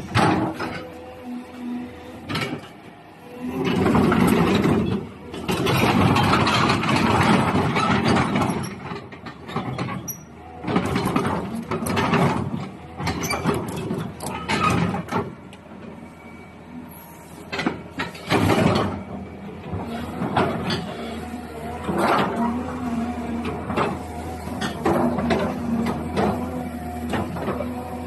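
Caterpillar 320 excavator running, its engine holding a steady pitch, with several louder noisy surges lasting a few seconds each in the first two thirds, then a steadier stretch.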